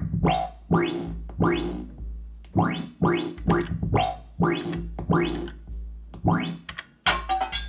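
Elektron Monomachine SFX60+ synthesizer playing a sequenced pattern of sharp synth notes a few tenths of a second apart, each sweeping upward in brightness, over a steady low bass. Near the end the pattern switches to shorter, clickier hits as a different kit is loaded.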